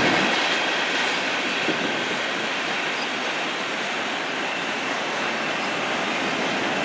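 Freight cars of a CN freight train rolling past on steel rails: a steady rush and rumble of wheels on track, with a faint thin high tone over it.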